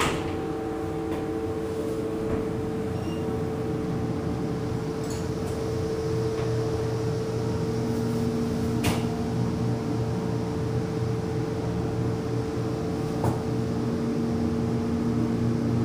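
Mowrey hydraulic elevator car travelling up, with a steady hum and a constant whine from the pump drive. A lower tone comes and goes partway through, and there are a couple of faint clicks, about nine and thirteen seconds in.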